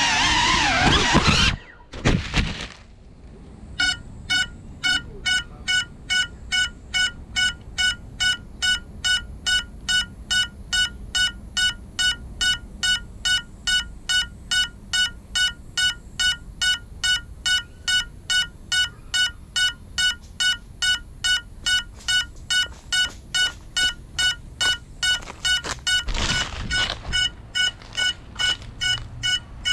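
FPV cinewhoop drone's motors whining and changing pitch, cut off suddenly by a crash with a couple of knocks about two seconds in. Then the downed drone's locator beeper beeps steadily over and over, with handling noise near the end as it is picked up.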